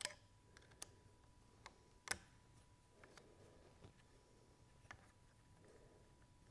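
About half a dozen faint, irregular clicks and ticks from a hex driver and M5 screw working against a plastic bracket ear and the metal carriage while the screw is being threaded, the loudest about two seconds in. Between them, near silence with a faint steady tone.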